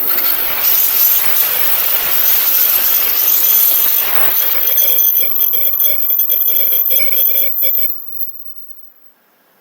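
Shinkansen bullet train passing at speed close by: a sudden loud rush of air and rail noise with steady high-pitched tones, which drops away quickly about eight seconds in as the train clears.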